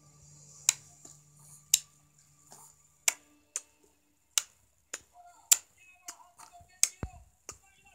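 About ten sharp taps at uneven intervals, a baby's hand patting a glass tabletop.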